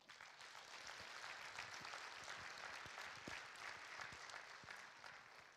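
Congregation applauding: many hands clapping steadily, then fading away near the end.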